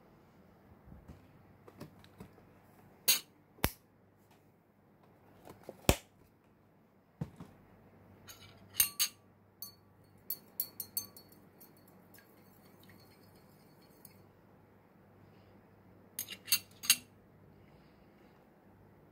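A metal spoon stirring a drink and clinking against a drinking glass. The clinks come singly at first, then in quick clusters with a brief high ring around the middle and again near the end.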